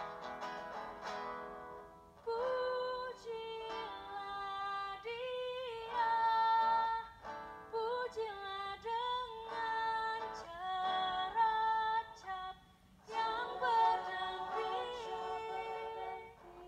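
A vocal group sings to acoustic guitar accompaniment, with a female lead voice into a microphone. A held chord fades out about two seconds in, then the melody resumes in phrases with short breaks.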